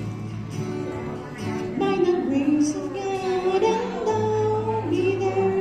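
A woman singing through a microphone to her own acoustic guitar, holding long notes that bend slightly in pitch.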